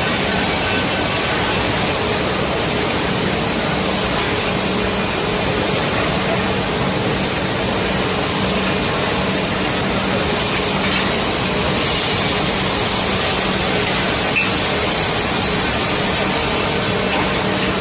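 Horizontal finger-jointing line running steadily: a dense, even whir of machinery with a faint low hum underneath.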